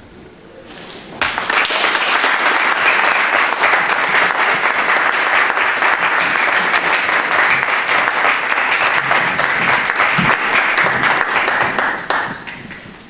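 Audience applauding: the clapping starts abruptly about a second in, holds steady, and dies away near the end.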